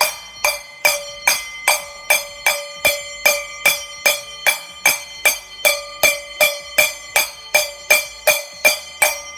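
A bowl struck over and over with a spoon, ringing at each strike, about two and a half strikes a second in an even rhythm.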